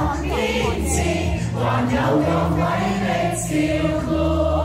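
Music with a chorus of voices singing together over a steady bass line.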